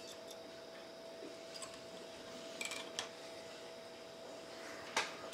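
Quiet room tone with a faint steady hum, broken by a few light clicks and taps from handling a small plastic smart-plug housing and its circuit board after soldering. The loudest tap comes about five seconds in.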